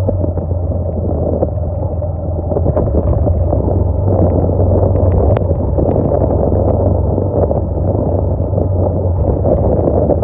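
Motorcycle engine running steadily while riding over a rough dirt track, with wind buffeting the microphone and occasional sharp knocks from the bumpy ground.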